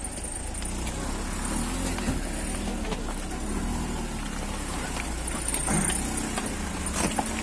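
Steady low rumble with faint voices in the distance and an occasional light click.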